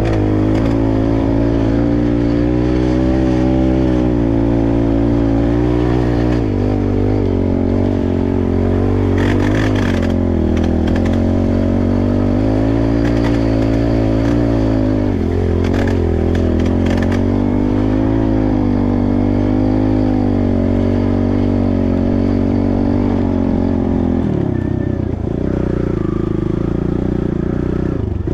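Dirt bike engine running under way, its pitch rising and falling with the throttle and dropping lower and steadier near the end, with a few short rattles.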